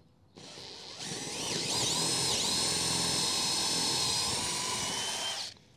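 Cordless drill boring a carriage-bolt hole into a wooden trailer deck board: the motor spins up, then runs at a steady high whine that dips briefly in pitch as the bit bites into the wood, and stops shortly before the end.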